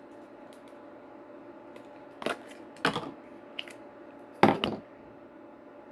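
A child's hands handling slime: four short noises about two, three, three and a half and four and a half seconds in, the last the loudest, over a low steady hum.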